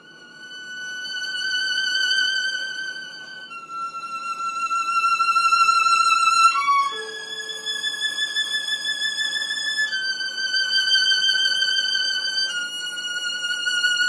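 Solo violin playing slow, long-held high notes with vibrato, the first swelling in from nothing. The note changes every few seconds, with a short quick run of notes about halfway through.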